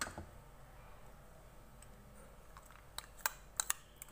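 Steel spoon clicking against a glass bowl while thick yogurt marinade is scooped out onto raw chicken. One click comes at the start, then after a quiet stretch a quick run of four or five clicks near the end.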